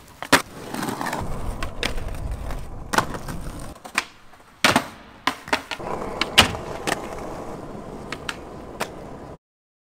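Skateboard wheels rolling on concrete, broken by a string of sharp clacks and knocks as the board pops and lands. The sound cuts to silence near the end.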